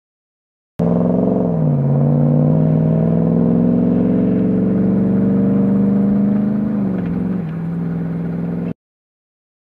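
Ram 1500 TRX's supercharged 6.2-litre Hemi V8 accelerating hard: the engine pitch dips about a second in with a gear change, climbs steadily for several seconds, then drops again with an upshift near the end.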